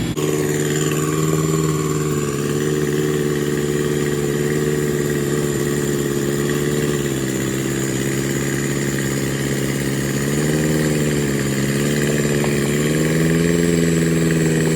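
Off-road 4x4's engine running steadily, its revs dipping and rising a little a few times, with an extra lift around the last few seconds.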